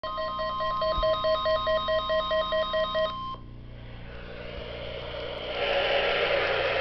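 NOAA Weather Radio's 1050 Hz warning alarm tone, steady, sounding over a rapid pulsing beep of about five pulses a second; both stop a little over three seconds in. Radio static hiss follows and grows louder toward the end.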